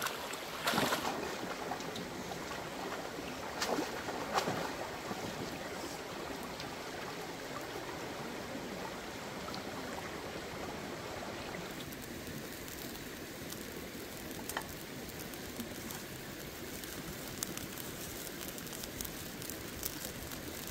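Shallow stream running over rocks, with a few splashes in the first five seconds as green mangoes are washed by hand in a basket in the water.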